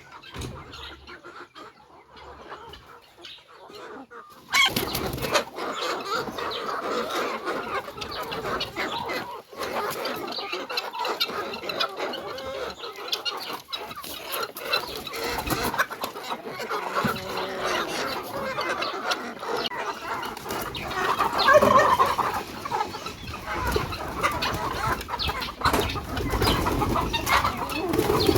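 A flock of chickens clucking, joined suddenly about four seconds in by a busy, continuous chorus of clucks and calls.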